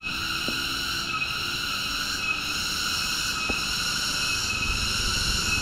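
Loud, steady chorus of tropical insects: a shrill, continuous drone of several high tones held level.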